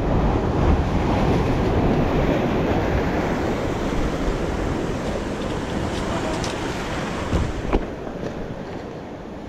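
Sea waves breaking on the rocks of a jetty: a loud rushing wash that swells at the start and slowly eases off, with wind buffeting the microphone. Two short knocks near the end.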